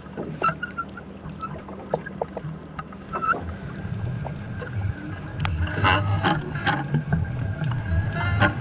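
Underwater audio from a camera lowered beneath a rowboat: scattered sharp clicks and knocks over a low rumble. It grows louder about halfway through, with a cluster of crackles about six seconds in.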